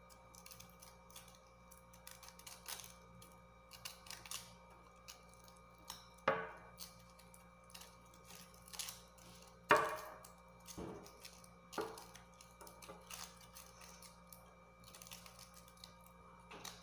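Kitchen knife peeling the base of a pineapple crown: irregular small clicks and scraping as the blade cuts through the tough leaf bases, with a few louder snaps, the loudest about ten seconds in.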